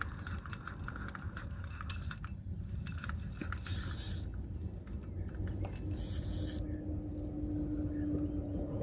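Fishing reel being cranked, its gears clicking fast, as a catfish is reeled in. Two short high-pitched bursts come about four and six seconds in, and a steady low hum starts near the end, over a low rumble.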